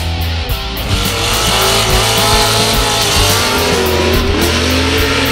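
Short-course off-road race truck engine revving hard, coming in about a second in, its pitch rising and falling.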